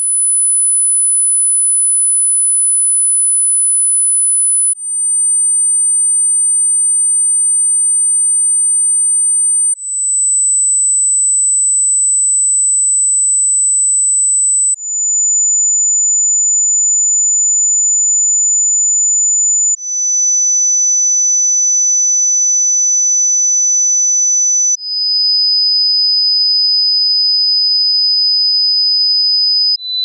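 Hearing-test sine tones: a single very high, pure whistle held about five seconds, then replaced by a slightly lower one, six steady tones in all, each a step lower, with a short dip in loudness at each change. These are the upper test frequencies, where first hearing the tone grades hearing from very poor to critical.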